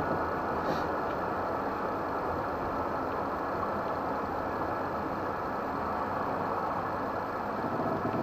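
Steady road and engine noise inside the cab of a camper driving at highway speed, a constant rumble and hum with no breaks.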